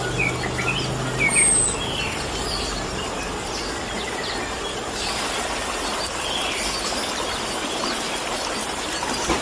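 Orange-headed thrush giving a quick run of short chirping notes during the first two seconds or so, over a steady rush of trickling water that carries on throughout.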